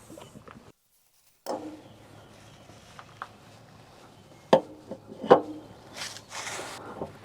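Hand work on the engine: a few scattered sharp knocks and clicks of tools and parts being handled, the loudest two about four and a half and five seconds in, with a short rustle near the end. The sound cuts out completely for under a second near the start.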